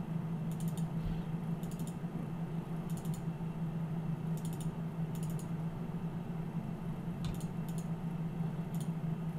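About eight scattered clicks of a computer keyboard and mouse, each a quick cluster of taps, over a steady low hum.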